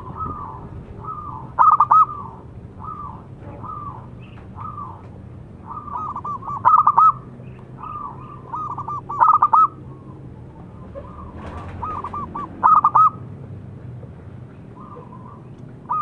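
Zebra dove (perkutut) cooing: a run of soft rolling coo phrases, broken about four times by a much louder burst of quick rapid notes.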